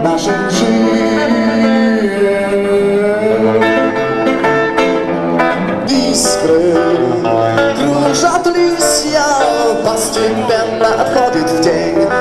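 Live rock music: electric guitar and band playing, with a man singing.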